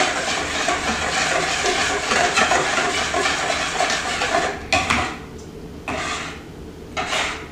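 Hand whisk beating eggs into a runny milk-and-yogurt batter in a ceramic bowl: a fast, continuous clatter and slosh for about four and a half seconds, then three or four short bursts of whisking with pauses between.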